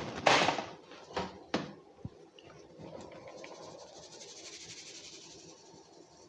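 Wheat starch being sifted through a metal mesh sieve over a glass bowl: a few knocks of the sieve in the first two seconds, then a soft, steady rustling rattle as the sieve is shaken and the powder falls through.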